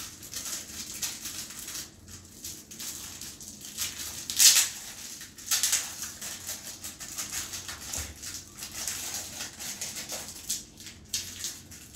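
Small plastic block pieces handled and pressed together by hand: light clicks and rustling, with a louder burst of rustling noise about four and a half seconds in.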